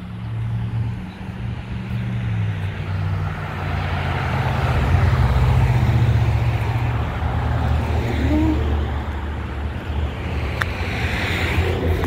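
Cars and a pickup truck passing on a street: engine hum and tyre noise swell to their loudest about five to six seconds in, then ease off.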